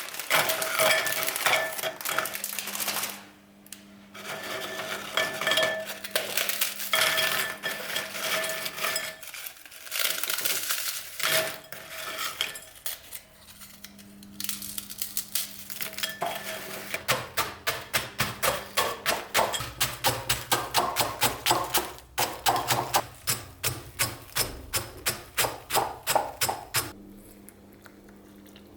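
Kitchen utensils knocking and clinking against dishes, then a steady run of about two or three strokes a second through most of the second half.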